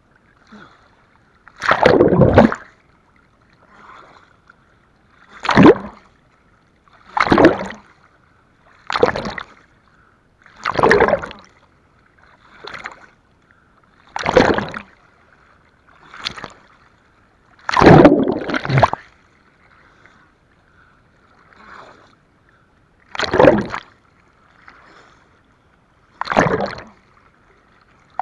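Seawater splashing and washing over a waterproof camera at the water surface, in loud rhythmic splashes about every two seconds as the camera dips under and comes back up, with a faint muffled hiss between them.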